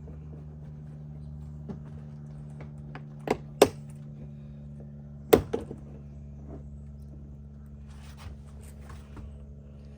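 Sharp plastic knocks and snaps, three loud ones in the middle and a few fainter clicks, as a truck's third-brake-light cover panel is pulled loose and its white plastic retaining clips pop out of the body. A steady low hum runs underneath.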